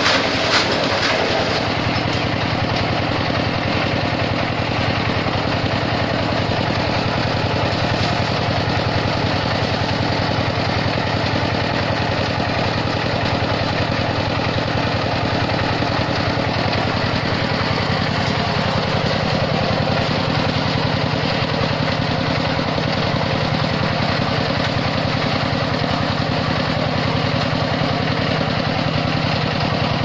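Small engine of a concrete mixer buggy running steadily at a constant speed as it turns the mixing drum.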